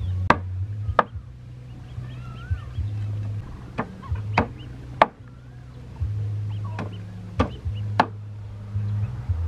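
A cleaver chopping on a wooden cutting board: seven sharp chops in small groups, two near the start, three in the middle and two near the end, each group's strokes a little over half a second apart.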